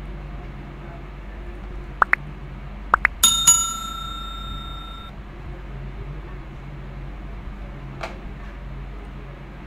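Subscribe-reminder sound effect: two pairs of sharp clicks, then a bright bell ding that rings on for under two seconds. A faint click comes near the end, over a steady low hum and hiss.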